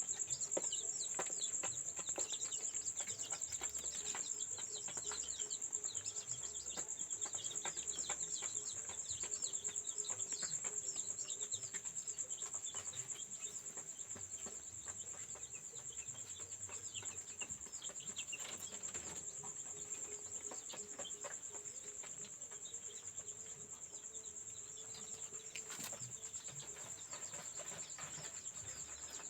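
Many newly hatched chicks peeping in quick, short falling cheeps, busiest at first and thinning out later. A steady high-pitched tone runs beneath them.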